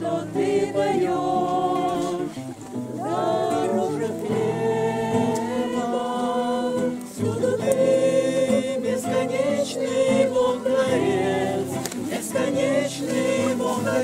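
A mixed group of men and women singing a religious hymn together in unison, accompanied by a strummed acoustic guitar.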